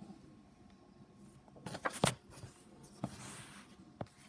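Comic books being handled: paper rustling and sliding, with a few light taps and clicks as the books are set down and moved.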